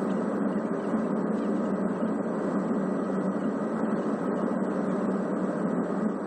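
Steady engine and airflow noise of a jet airliner's underwing turbofans, heard inside the cabin on final approach before touchdown.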